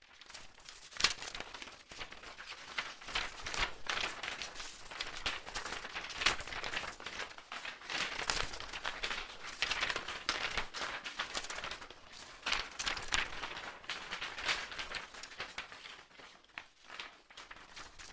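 Irregular rustling and crinkling of handled paper or plastic packaging, thinning out near the end.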